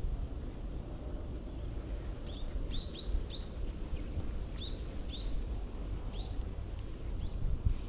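A bird calling with a run of short, repeated chirps, about eight of them starting about two seconds in, over a steady low outdoor rumble.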